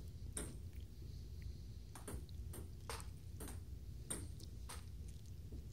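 Table tennis rally: the ping-pong ball clicking off the paddles and the table, one hit near the start, then a quick run of about six hits, roughly two a second, over a low steady hum.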